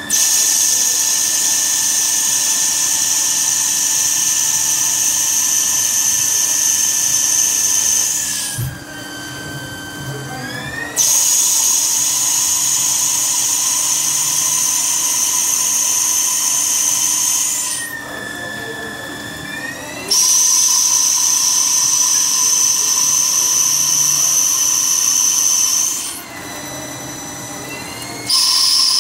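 CNC lathe turning brass bar stock: a high spindle whine with a loud hiss of cutting. It comes in long passes of six to eight seconds. Between passes the sound drops for a couple of seconds while the whine's pitch slides down and back up.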